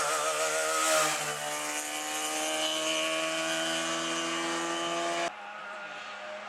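Trabant 601 rally car's two-stroke twin-cylinder engine at high revs: its note wobbles and dips as the car passes close, then climbs steadily as it accelerates away up the road. About five seconds in it cuts off suddenly, leaving the fainter engine of a distant approaching rally car.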